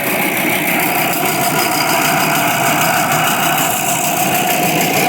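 Electric air compressor running steadily as its pump fills the tank, with a really big metal grinding sound from the machine.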